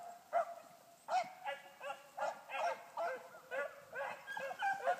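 A pack of hunting hounds baying on a trail. Single spaced bays come first, then several dogs give voice together from about a second and a half in, a sign the pack is on the scent and running it.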